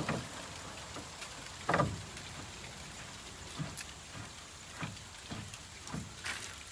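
A few scattered light knocks and clunks of metal being shifted by hand, the loudest about two seconds in.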